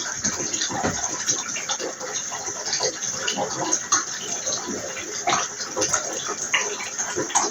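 Water running into a bathtub: a continuous splashing rush, broken by many small irregular splashes and bubbles.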